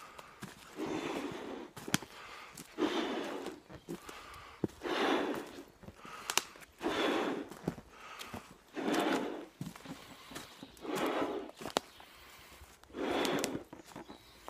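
Breaths blown into a large latex balloon, a short puff about every two seconds, seven in all. Footsteps with sharp clicks fall between them.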